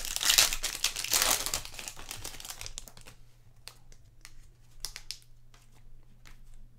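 A trading card pack wrapper crinkling as it is torn open and handled, dense crackling for the first couple of seconds, then scattered light clicks and ticks as the cards are handled.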